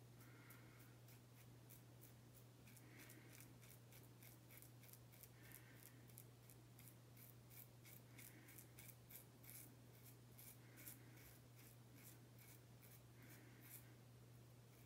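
Edwin Jagger DE89 double-edge safety razor scraping through lathered stubble on the upper lip and chin: faint, rapid scratchy strokes of whiskers being cut, coming in short runs, on the first pass of the shave.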